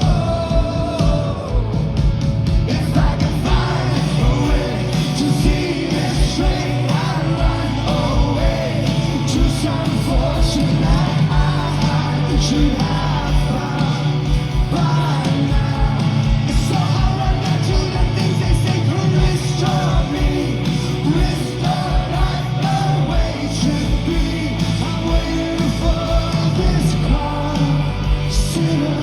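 Live rock band playing a song, with a lead vocalist singing over drums, bass and guitars, heard at concert volume.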